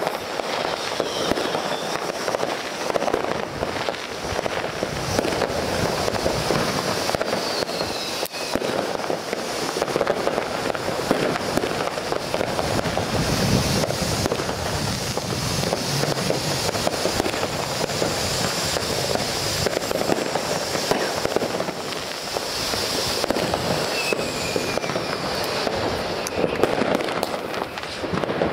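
Fireworks: a ground fountain spraying sparks with a steady hiss and dense crackling, mixed with many sharp pops and bangs that never let up.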